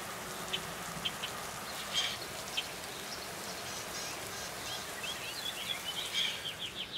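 Steady rain falling outdoors, with birds chirping now and then and a quick run of chirps near the end.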